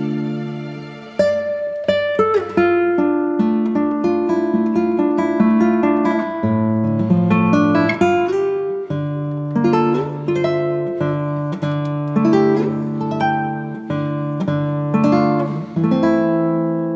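Background music played on a plucked acoustic guitar: a steady stream of picked notes and chords, each note ringing and fading, with a short lull about a second in before the playing picks up again.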